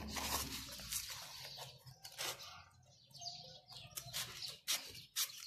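Small scissors snipping through a craft foam sheet, with the sheet rustling as it is turned in the hands: irregular short cutting strokes.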